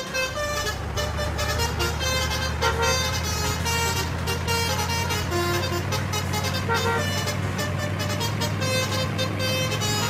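Steady low drone of a bus engine running, a dubbed-in vehicle sound effect, with short higher tones coming and going over it.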